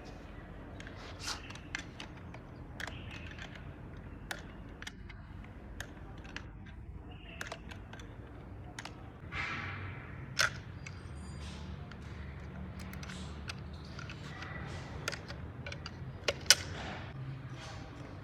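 Scattered clicks and knocks of tools and metal parts being handled during a hydraulic cylinder rebuild, over a low steady hum. There is a sharp knock about ten seconds in, and the loudest one comes near the end.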